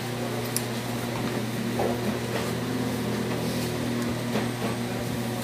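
Steady low machine hum, as from an air conditioner or cooler running in a small room, with a few faint soft clicks of someone chewing pizza.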